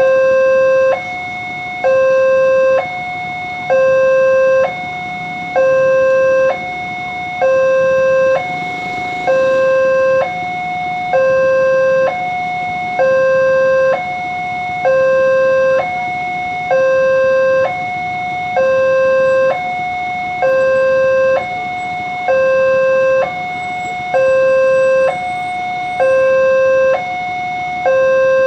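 Railroad level-crossing warning alarm sounding a steady two-tone pattern: a lower tone and a higher tone alternate, each about a second long, warning that a train is approaching.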